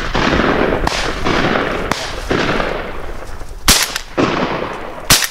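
A rapid volley of shotgun shots from several guns at flying ducks: about eight sharp reports, each echoing on behind it. The loudest two come near the end.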